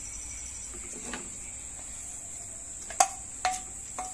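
A stainless steel bowl of macaroni being emptied into a pan of white sauce, knocked with a wooden spatula to shake out the last pieces: three sharp, ringing clinks near the end, over a steady faint high hiss.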